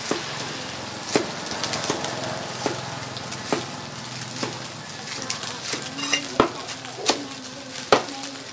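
Food frying with a steady sizzle, punctuated by scattered sharp clinks and knocks of utensils against pots or dishes.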